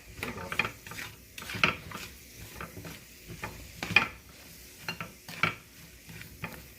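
A utensil stirring fresh string beans sautéing in butter and garlic in a pan, with irregular clinks and scrapes against the pan, the loudest about four seconds in, over a faint sizzle.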